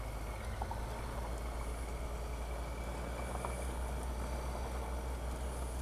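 Triumph adventure motorcycles running steadily at low speed on a gravel track: a constant low engine hum under an even hiss of road noise, with a few faint clicks.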